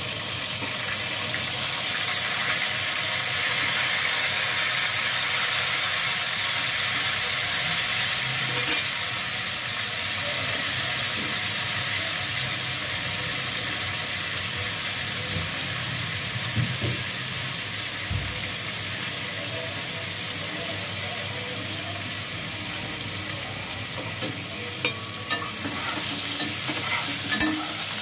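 Sliced onions sizzling steadily as they fry in hot oil in an aluminium pot, already browned. In the last few seconds a spoon clicks and scrapes against the pot as they are stirred.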